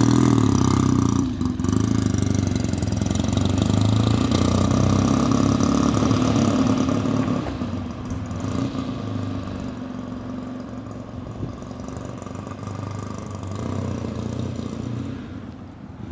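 1974 Triumph Bonneville T120V's 650 cc parallel-twin engine, freshly rebuilt and still being run in, running as the bike pulls away; loud at first, then fading over the second half as it rides off.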